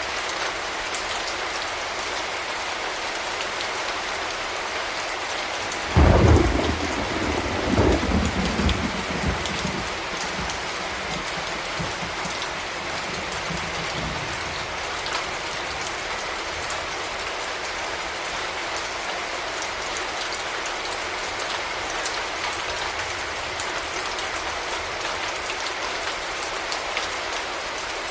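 Steady rain falling. About six seconds in, a loud clap of thunder breaks in and rumbles away over the next several seconds.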